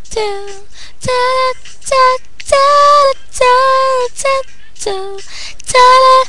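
A young female voice sings a string of about eight short wordless held notes, mostly on one or two pitches, with brief breaks between them, over a steady quieter backing.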